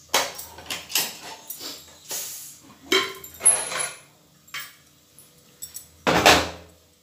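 Pressure cooker lid being worked open and lifted off: a quick string of metal clicks, knocks and scrapes, then a louder burst of noise about six seconds in.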